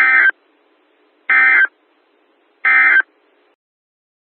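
Emergency Alert System end-of-message (EOM) data tones: three short, loud bursts, each about a third of a second, about 1.3 seconds apart. They are the digital code that marks the end of the alert broadcast.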